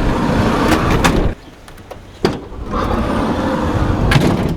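Family van on the move: a steady rumble of road and engine noise with a few sharp clicks and knocks. It breaks off suddenly about a second and a half in and picks up again after a sharp click.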